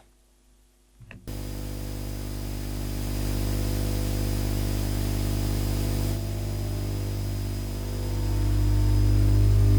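Atmospheric white-noise sample played back through reverb, hissing over low held drone tones. It starts abruptly about a second in and grows louder toward the end.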